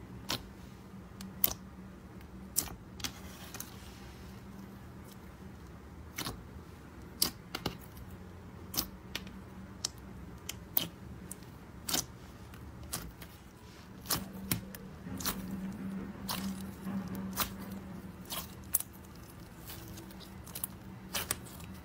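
Clear slime full of small beads being squeezed and pressed by fingers, giving irregular sharp pops and clicks as air pockets in it burst.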